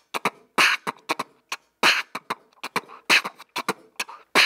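Beatboxing close into a studio microphone, hands cupped around the mouth: a quick, uneven rhythm of sharp drum-like mouth hits, some short and clicking, some hissy like a snare or hi-hat.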